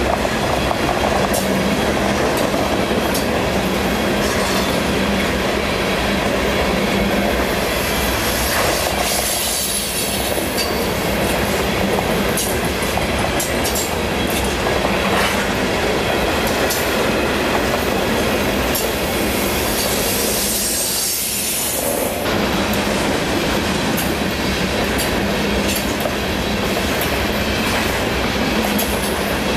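Loaded coal hopper cars rolling past on the rails: a steady rumble and rattle, with wheels clacking over rail joints and a high wheel squeal at times.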